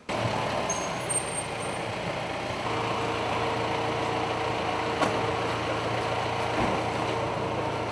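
A motor vehicle engine idling with a steady hum, with one sharp click about five seconds in.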